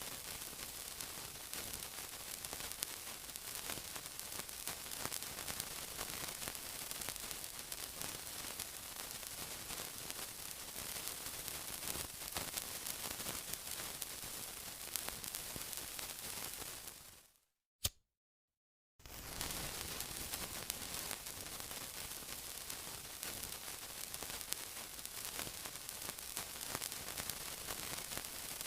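Continuous sizzling: a dense, even crackle and hiss. It cuts out abruptly for about a second and a half past the middle, with one sharp click in the gap, then resumes.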